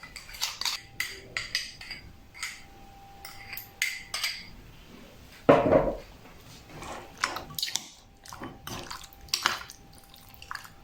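Utensils clinking and scraping against a bowl as the lamb is worked through its marinade, with scattered short clinks and one louder knock about five and a half seconds in.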